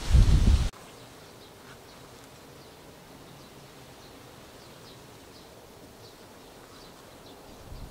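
A loud rush of wind buffeting the microphone, cutting off abruptly under a second in. Then faint garden ambience with small birds chirping softly and repeatedly.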